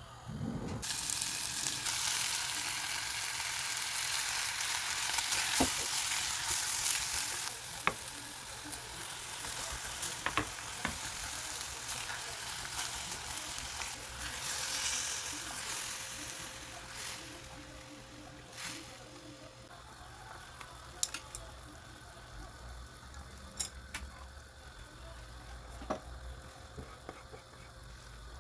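Food sizzling in a hot frying pan, starting suddenly just under a second in, loudest over the first half and then dying down, with a few sharp clicks of a utensil against the pan in the quieter second half.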